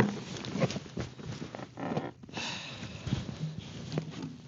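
Rustling and light knocks of someone shifting and handling gear, with a breathy rush about two seconds in.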